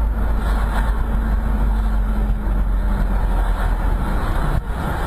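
Steady engine and road noise of a moving car heard from inside its cabin, a deep rumble with tyre noise on wet asphalt.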